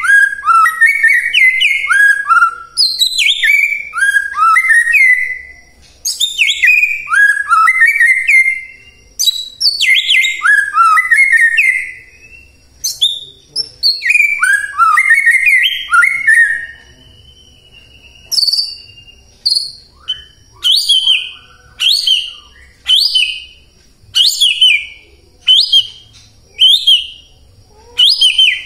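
White-rumped shama singing: quick runs of loud whistled phrases falling in pitch. From about two-thirds of the way through, these give way to a string of short, sharp falling notes repeated roughly once a second.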